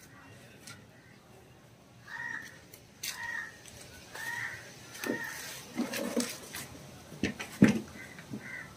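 Crows cawing repeatedly, in short harsh calls about a second apart. Several sharp knocks come in the second half, the loudest about three quarters of the way through.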